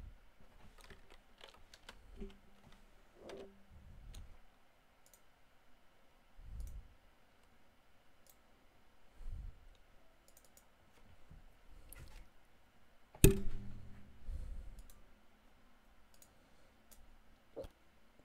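Scattered computer mouse clicks and keyboard taps, with one sharp knock about thirteen seconds in and a few soft low thumps.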